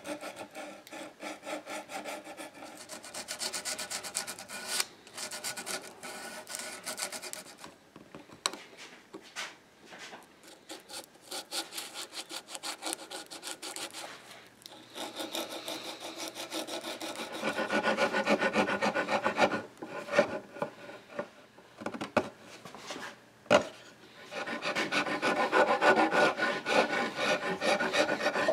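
Hand sanding and filing of hardened epoxy putty on a mahogany table leg: quick back-and-forth rubbing strokes in runs with short pauses. The strokes grow louder in the second half, where a small file is worked over the putty.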